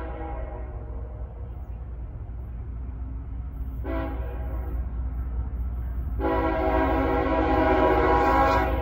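Diesel locomotive air horn of CSX 3299 sounding for a grade crossing as the train approaches: a held note trailing off at the start, a short blast about four seconds in, then a louder long blast from about six seconds in. A steady low rumble of the approaching train runs underneath and grows louder.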